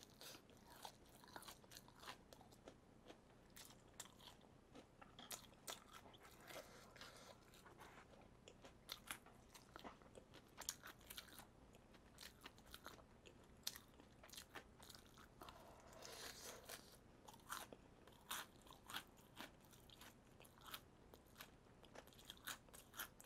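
Faint, irregular crunching as crispy-battered fried chicken (BBQ Golden Olive) is bitten and chewed: many short, sharp crackles of the crust.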